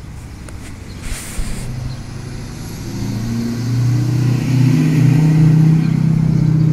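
A car driving by on the road, its engine and tyre noise growing steadily louder as it approaches and loudest near the end.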